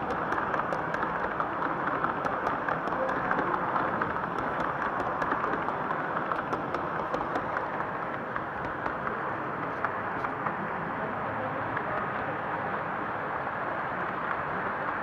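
Gauge 1 model train running past on its track, the wheels rolling with faint regular clicks, under the steady murmur of a large hall full of visitors.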